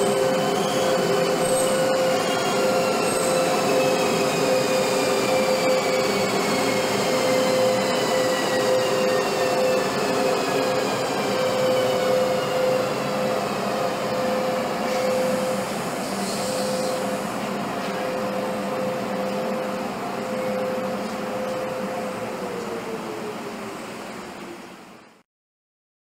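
ÖBB Class 1044 electric locomotive running, with a steady electrical hum and a high whine that falls slowly in pitch. The sound eases off and cuts out near the end.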